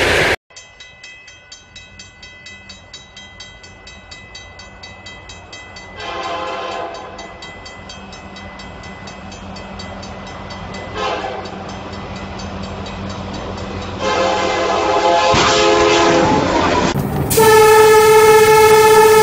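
A railroad crossing bell rings at about four strokes a second while an approaching train sounds its horn in three blasts, each louder than the last, the third one long. After a cut, a locomotive horn is held in one loud, steady blast at bears on the track.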